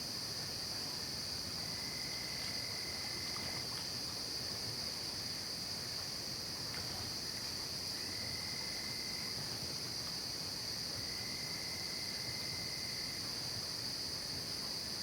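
Night insect chorus of crickets: a steady, high shrill that doesn't let up, with a lower trill that sounds three times for a second or two each.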